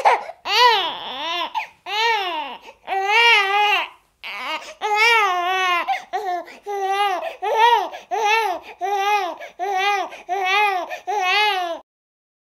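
A high-pitched voice in a run of wavering, wordless syllables, about two a second in the second half, with no background noise behind it, cutting off suddenly near the end.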